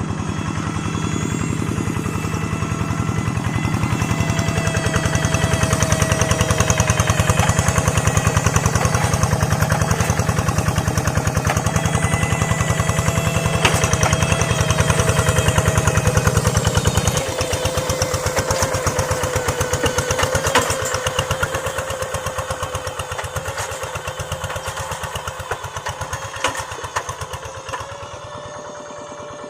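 Small single-cylinder engine of a hand tractor running with a rapid, even chugging beat. About halfway through, the low rumble drops away and the note falls a little, and the engine gets gradually quieter toward the end.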